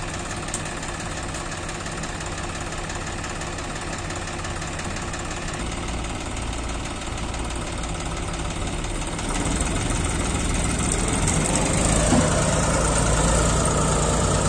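Heavy diesel engines of a stuck combine harvester and a JCB 3DX backhoe loader running steadily, growing louder about nine seconds in and again near the end.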